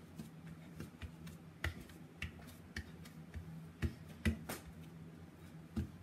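Hands patting and pressing crescent-roll dough flat on a floured wooden tabletop: a scatter of light, irregular taps, about eight of them, over a steady low hum.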